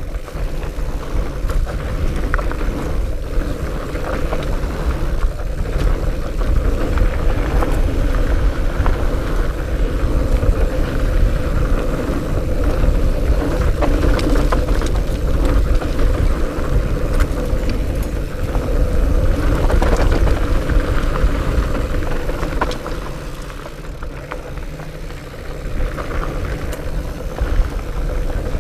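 A fat bike riding down a dirt singletrack: wind buffeting the action-camera microphone and the wide knobby tyres rumbling over the trail, with scattered sharp clicks and rattles from the bike. It eases off for a few seconds near the end, then picks up again.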